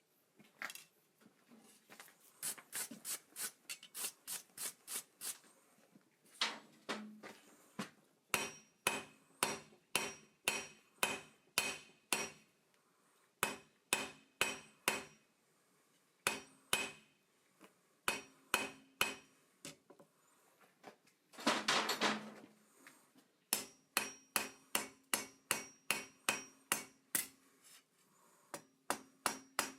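Hand hammer forging hot metal on an anvil: runs of sharp ringing blows, about three a second, broken by short pauses. A little after two-thirds of the way in there is a brief scraping burst instead of blows.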